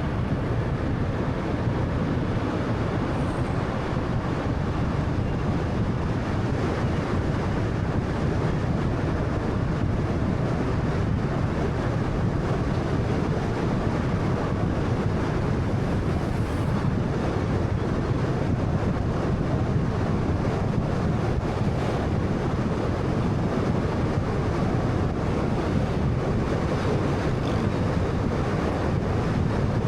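Steady road noise from a moving 2013 Honda Fit: tyres, engine and wind blending into an even, deep rush that does not change.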